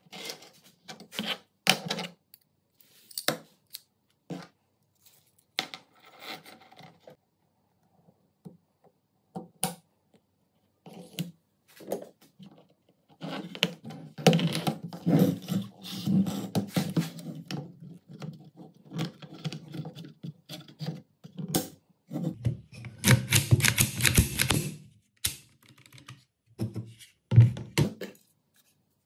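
Metal gun parts handled on a workbench mat: scattered light clicks and knocks, with two longer stretches of rattling and scraping as a coil recoil spring is worked onto its guide rod and fitted into the receiver.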